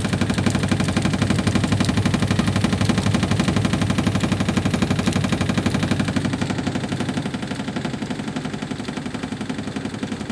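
Top-loading washing machine spinning its drum at high speed with the lid open: a steady motor-and-drum hum with a rapid, even pulsing rattle, getting somewhat quieter in the second half.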